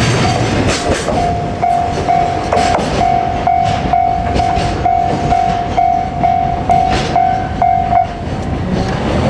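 Railway level crossing alarm dinging a steady electronic tone about three times a second, stopping about eight seconds in, while the wheels of freight wagons click over the rail joints.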